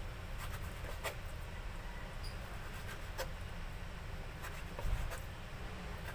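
Kitchen knife cutting raw yellowfin tuna into cubes on a cutting board: scattered, irregular sharp taps as the blade meets the board, over a steady low hum.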